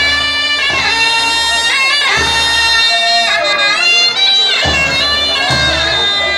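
Nepali panche baja music: sanai, shehnai-type double-reed pipes, playing a loud melody whose notes slide and bend.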